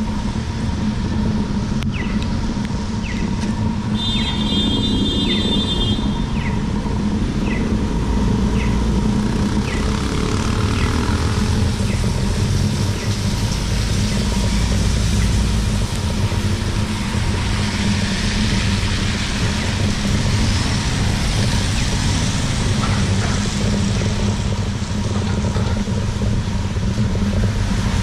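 Street traffic on a wet road: a steady low rumble of car engines, with tyres hissing on the wet pavement as cars pass, loudest about two-thirds of the way through. Faint regular ticks, about one a second, run through the first ten seconds.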